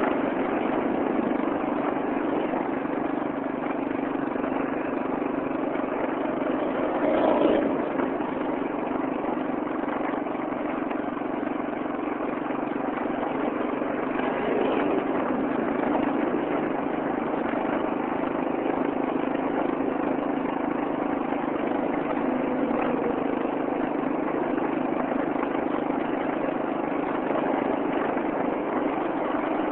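Steady engine and road noise of a moving vehicle, heard from inside its cabin, with a constant low hum. A brief louder sound rises and falls about seven seconds in.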